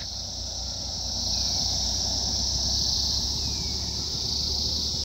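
Steady, high-pitched chirring of a cricket chorus over a low rumble; it cuts off suddenly at the very end.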